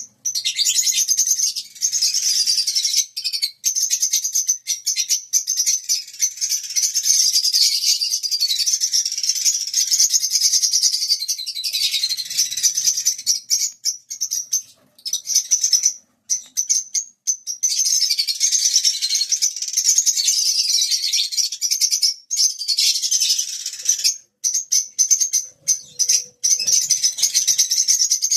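Fischer's lovebirds chattering: a loud, shrill, rapid twittering that runs almost without a break, with a few short pauses.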